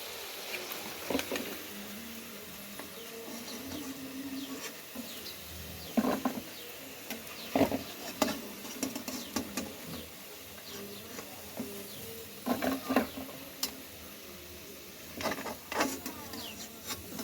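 Cooking sounds: scattered clinks and knocks of kitchen utensils, about a dozen, heard over a low steady background.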